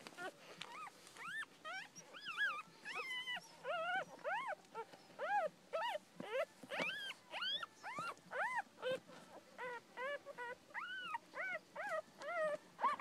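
Newborn miniature dachshund puppies squeaking and whimpering: a steady string of short, high calls that rise and fall in pitch, about two or three a second.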